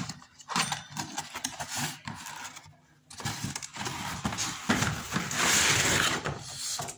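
Cardboard packaging being handled: the box flap is opened and the hammer drill's carton is slid out of its outer packing. Scraping and rustling with a few knocks, loudest in the second half as the carton slides out.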